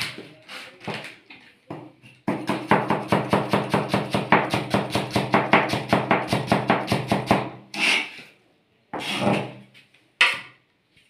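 Cleaver chopping cabbage on a plastic chopping board: a few slower cuts, then a fast, even run of knocks, about five a second, for some five seconds, with a ringing tone under them. Near the end, a few separate louder knocks or scrapes.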